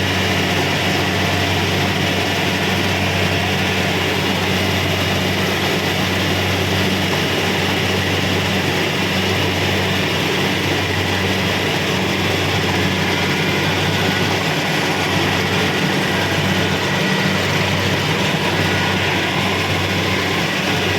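Kubota DC-70 Pro combine harvester working: its diesel engine runs steadily with a deep hum, under a dense rushing noise from the machinery.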